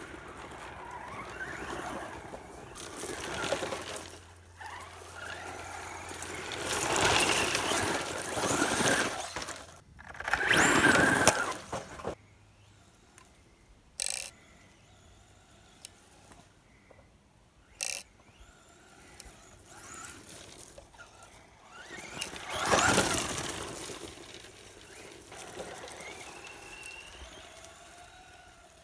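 Brushless electric motor of a Tamiya Super Levant RC truck whining as the truck runs over a grass lawn. The sound swells several times as it comes close, loudest about ten seconds in, and the whine rises and falls with speed. Two brief sharp sounds come in the quieter middle.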